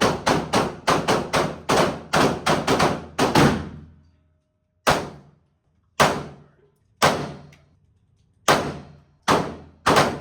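Rapid gunfire, about a dozen shots at three or four a second, then a short pause and a string of single shots roughly a second apart.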